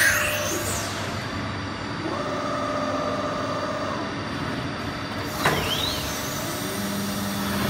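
Megatron GMT300 4-axis CNC wood lathe-mill running, its motors giving a steady whine. About five and a half seconds in there is a sharp sound with a quick sweep in pitch as a motor changes speed.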